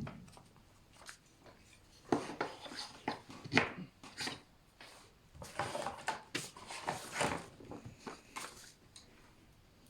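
Irregular rustling, clicks and light clatter of a science-experiment kit's parts and packaging being handled and unpacked, in clusters over several seconds.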